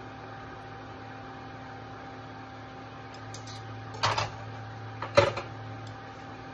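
Steady low kitchen hum with a faint steady whine, broken by two sharp clattering knocks about four and five seconds in as a utensil is handled and set down beside the griddle.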